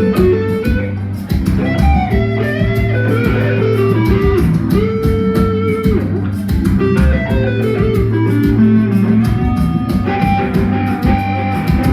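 Band playing blues-rock: electric guitar lines over bass guitar and a steady drum beat.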